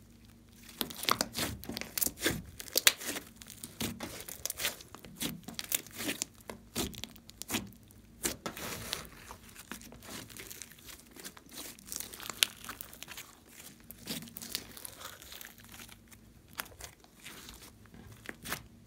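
Pink fluffy slime being stretched, folded and squeezed by hand: a dense run of small crackling pops and sticky tearing sounds, starting about a second in.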